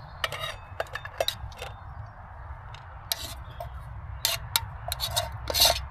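A utensil clinking and scraping against a camping cooking pot as food is served out of it into a bowl: a run of sharp, irregular clicks, with longer scrapes near the end.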